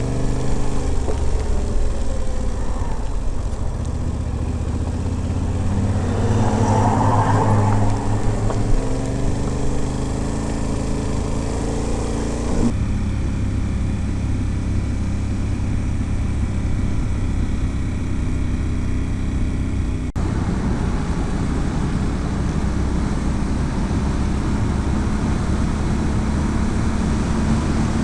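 Yamaha Ténéré 700's parallel-twin engine running steadily under way, with heavy wind rush over the microphone. The engine note changes abruptly about 13 seconds in and again near 20 seconds.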